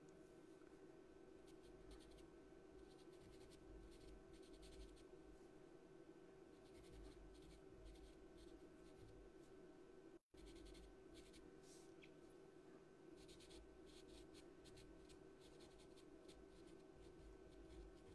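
Faint scratching of a pastel pencil in short, irregular strokes on pastel paper, over a low steady hum.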